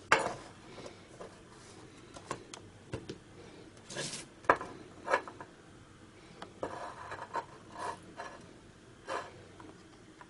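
Handling noises from tweezers and a thin plastic-cased laptop battery pack on a workbench: a sharp click right at the start, then scattered lighter clicks, taps and short scrapes as the pack is picked up and turned.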